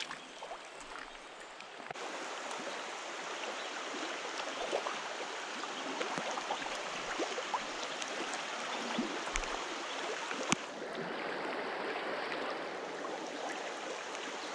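Flowing stream water rushing steadily, louder from about two seconds in, with scattered small ticks and one sharp click about ten seconds in.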